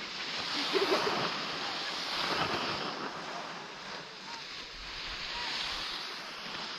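Skis sliding and scraping over packed snow, mixed with wind rushing over the microphone, swelling and fading as the skier moves down the slope.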